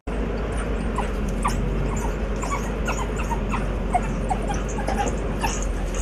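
African wild dogs giving many short, high-pitched squeaking yips over the steady low running of a safari vehicle's engine.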